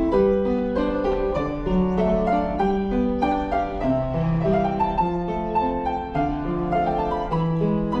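Piano music: a continuous flow of sustained notes, melody over lower notes, at an even pace.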